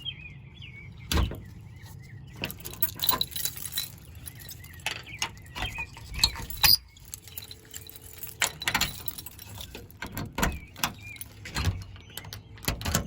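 A storage enclosure being closed and fastened by hand: a run of irregular sharp clicks, knocks and light rattles, with the loudest knocks about a second in and near the middle.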